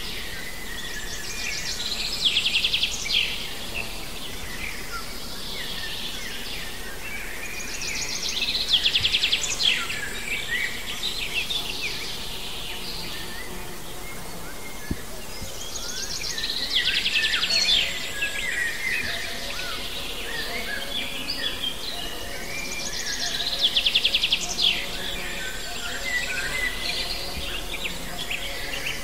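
A songbird sings a short, rapid trilled phrase four times, about every seven seconds. Fainter chirps of other birds and a steady outdoor hiss run underneath.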